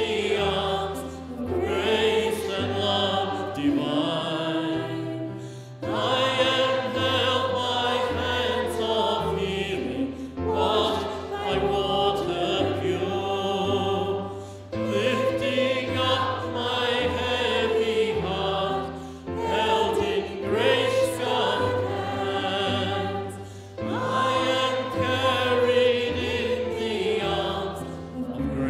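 Voices singing the chorus of a worship song to instrumental accompaniment with a moving bass line, in phrases that pause briefly about every four to five seconds.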